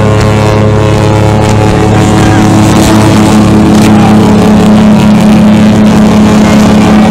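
Loud, steady low drone from a cruise ship, several fixed low tones held without a break.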